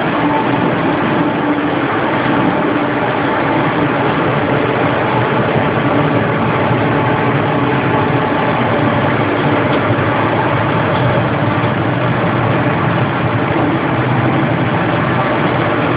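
Machinery running with a loud, steady hum and a few faint steady tones, unchanging throughout.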